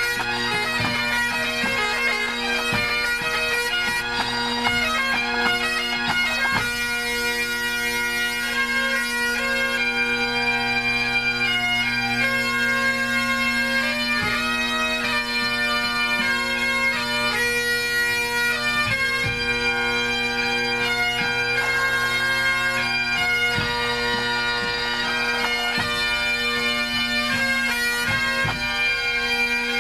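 Great Highland bagpipes of a pipe band tuning up together: steady drones held under chanter notes that change every second or so.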